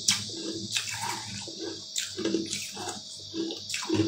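Close-miked eating: a lime-shaped treat being bitten and chewed, with several sharp, wet clicks and a regular chewing rhythm about twice a second. A faint steady hum sits underneath.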